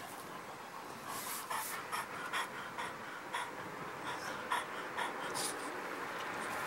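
French bulldog panting, short noisy breaths coming unevenly about once or twice a second.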